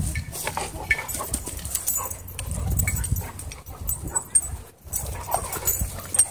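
Dogs growling as they play-wrestle: a German Shorthaired Pointer, a wolf dog and a puppy. The low growls come and go, with a brief lull just before the last second and a half.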